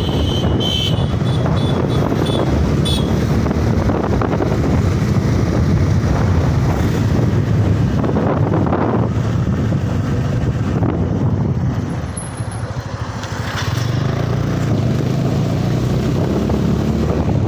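Motorcycle on the move: wind rushing over the microphone with the engine running underneath, easing off briefly about twelve seconds in.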